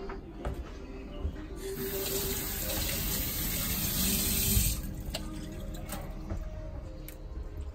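Tap water running into a stainless steel sink for about three seconds, then shut off abruptly.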